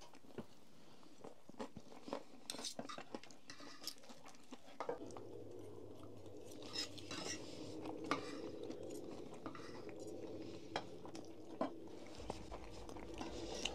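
Light clinks and scrapes of cutlery against dishes during a meal, scattered and irregular. A faint steady hum comes in about five seconds in.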